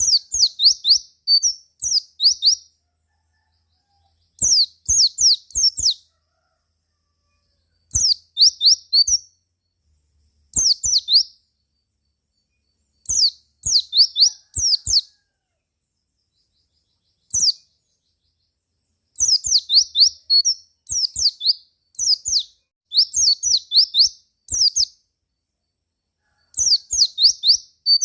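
White-eye (pleci) chirping in short bursts of quick, high sliding notes, a burst every two to three seconds with silence between. It is a bait call used to provoke other white-eyes into singing.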